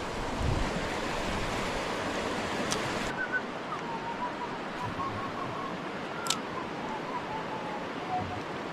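Cranberry River's current rushing: a steady, even water noise. About three seconds in it thins and grows a little duller, and a few faint, thin, wavering whistle-like notes come through over it.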